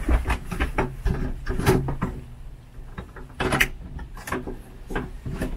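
A string of irregular wooden knocks and clunks, with a quieter gap a little past two seconds in.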